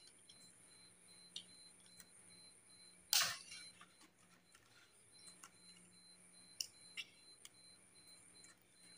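Sparse small clicks and one short crackling snip about three seconds in: insulation being stripped off thin head-unit harness wires with a hand tool, over a faint steady hum.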